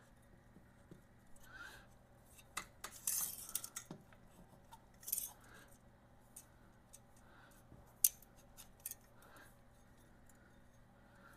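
Stainless steel motorcycle exhaust pipe being slid together and test-fitted by hand: quiet, scattered metal scrapes and clicks, with a cluster of scraping about three seconds in and a sharp click about eight seconds in.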